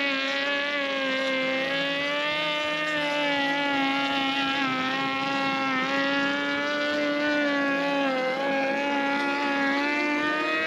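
Handheld electric power tool running along the edge of OSB roof boards, its motor giving a steady high whine that dips briefly in pitch about eight seconds in.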